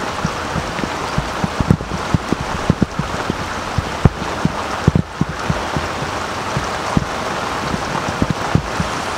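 Steady rain with irregular thumps of raindrops striking the microphone's cover, several a second, two of them especially loud about four and five seconds in.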